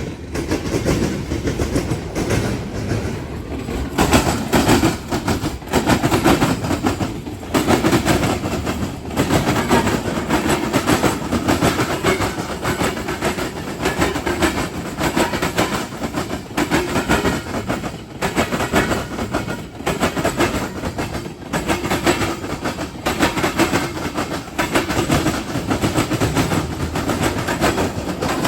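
Freight train cars rolling over a railroad diamond crossing, their wheels clacking loudly and repeatedly across the crossing's gaps in a long, fast-pulsing run over a steady rumble.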